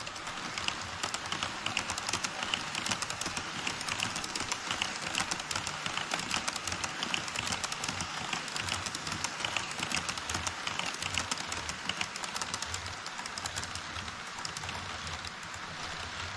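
HO-scale model trains rolling past on the track over a model truss bridge: a steady rattle of wheels on rails with many quick clicks.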